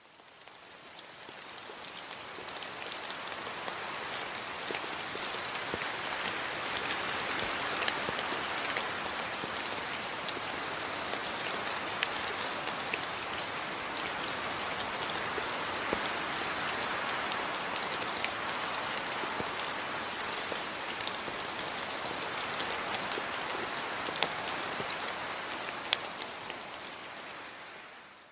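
Steady rainfall: an even hiss of rain with scattered sharper drop ticks standing out. It fades in over the first few seconds and fades out at the end.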